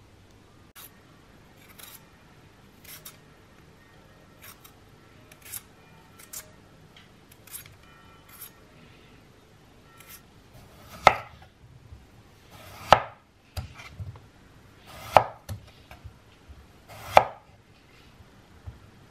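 Light scraping strokes of a vegetable peeler on a potato, then four loud chops of a chef's knife slicing through a peeled potato onto a wooden cutting board, about two seconds apart.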